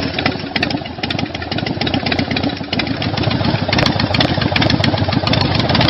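Harley-Davidson Street 750's liquid-cooled V-twin running just after start-up, a loud, rapid, uneven exhaust beat through an aftermarket Screamin' Eagle exhaust. It grows a little louder after about four seconds; roaring.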